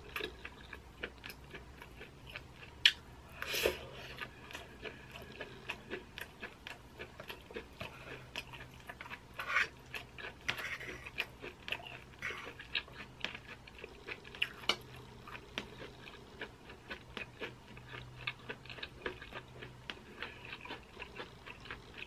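Close-up chewing and mouth sounds of someone eating corn cheese (sweet corn kernels under melted mozzarella), with many small wet clicks. Now and then a metal spoon knocks on the baking tray; the loudest click comes about three seconds in.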